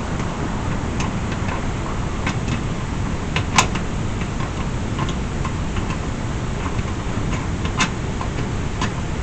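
Scattered small metallic clicks and taps of a Jeep hood latch and its nut being handled and lined up on the stud by hand, with one sharper click about three and a half seconds in and another near the end, over a steady low rumble.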